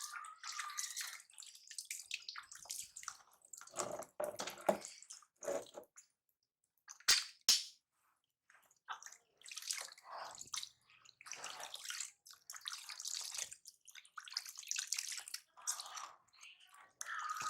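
Water splashing and trickling in short, irregular bursts. About six seconds in the sound drops out for a moment, followed by two sharp clicks, then the splashing resumes.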